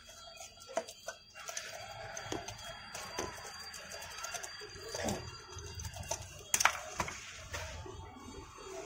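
Handling noise of a tubeless scooter tyre and a metal tyre lever being worked against the wheel rim: scattered knocks and clicks, with the sharpest knocks about five seconds and six and a half to seven seconds in.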